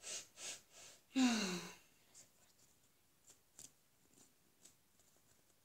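A child sniffs three quick times at a squishy toy held to the face, then lets out a voiced sigh that falls in pitch. A few faint light ticks follow.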